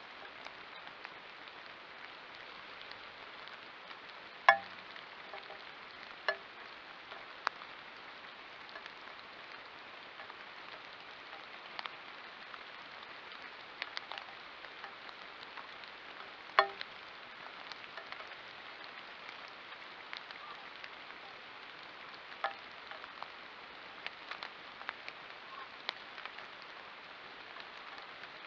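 Light rain: a steady hiss with scattered sharp drips ticking on the trail camera's housing, two of them much louder than the rest.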